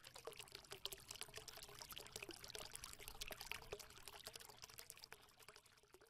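Faint sound of water, a dense patter of small ticks over a low hum, thinning out about five seconds in.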